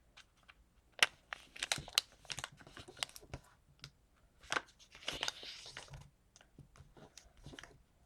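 A sheet of paper being flipped over and folded by hand: scattered crisp crinkles and taps, with a longer rustle about five seconds in.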